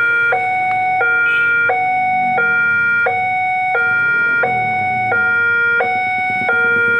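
Electronic two-tone warning alarm of a railway level crossing, sounding a high and a low tone that alternate evenly about every 0.7 seconds. It signals that a train is approaching and the barriers are closing.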